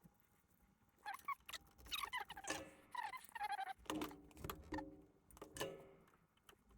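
Faint squeaks and small clicks of metal parts being worked as the parking brake cable and its clip are pulled free of a rear brake caliper. The squeaks come in a quick, uneven run with gliding pitch.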